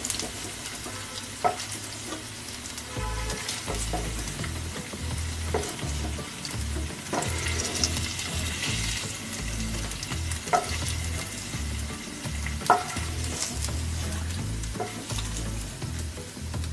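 Paneer cubes sizzling in hot oil in a nonstick frying pan as they are scooped out with a wooden spoon, which knocks against the pan now and then.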